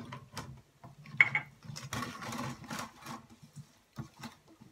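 Charmoula marinade being stirred in a stainless steel bowl, with irregular clicks and scrapes against the metal as the freshly added salt is mixed in.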